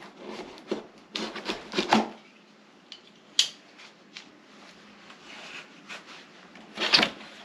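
A cardboard box and its packaging being opened and handled by hand: irregular rustles, scrapes and sharp knocks, with a cluster of them in the first two seconds and a louder knock near the end.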